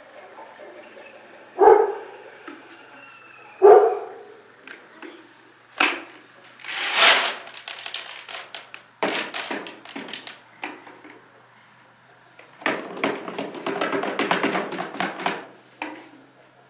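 A dog barks twice within the first four seconds. Then a plastic bucket and scoop knock and rattle, and near the end there are a few seconds of rushing as the bucket's contents are poured into a horse's feeder.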